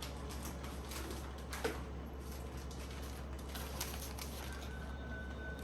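Light taps and scrapes of a utensil working a lumpy cinnamon and powdered-sugar filling, spread over rolled-out dough, with a few sharper clicks over a steady low hum. A faint, thin, high steady tone comes in near the end.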